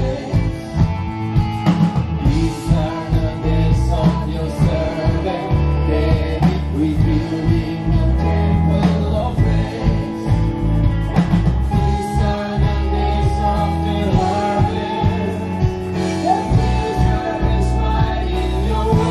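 Live gospel worship band playing an upbeat song: lead and backing singers over acoustic and electric guitars, keyboard and a drum kit, with a heavy low end.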